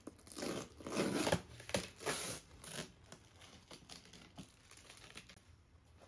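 Cardboard shipping box being opened by hand: a run of loud rustling and tearing over the first three seconds as the flaps are pulled apart, then quieter scattered rustles.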